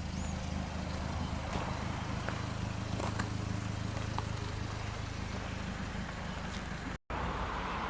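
A Toyota Noah's petrol engine idling steadily, a low even hum, with scattered faint clicks and short chirps above it. The sound drops out for a split second about seven seconds in.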